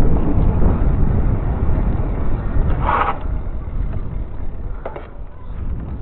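Wind rumbling on the microphone and tyre noise from a mountain bike rolling on a wet road, easing off as the bike slows. There is a short hiss about three seconds in and a couple of faint clicks near the end.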